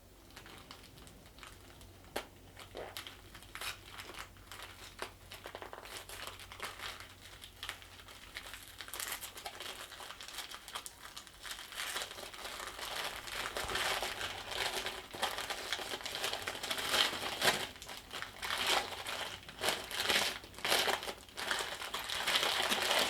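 Packaging crinkling and rustling as it is handled and unwrapped, a steady run of small crackles that starts faint and grows louder about halfway through.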